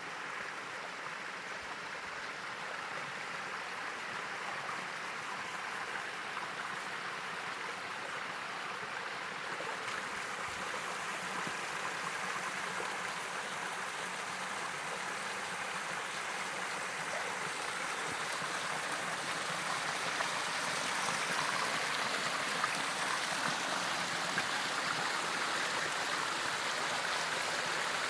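Running water, a steady rushing hiss that grows gradually louder.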